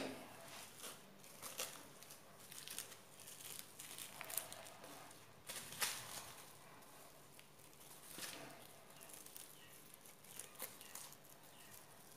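Plastic cling film crinkling and rustling as hands wrap and press a lump of soft dough, faint, with scattered sharper crackles.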